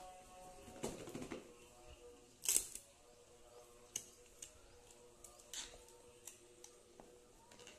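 Handling of a cardboard phone box: scattered light clicks and rustles as the box is turned and worked open by hand, with a short scrape about a second in and a sharper click about two and a half seconds in.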